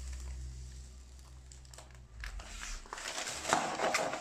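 Plastic protective film on a diamond painting canvas crinkling as it is peeled back and the sheet is lifted. The crinkling starts about two seconds in and is loudest near the end.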